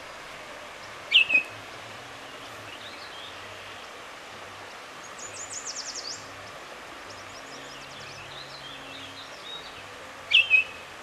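Songbirds calling: a sharp chirp about a second in, a quick high trill around the middle, and two more chirps near the end, over a steady background hiss.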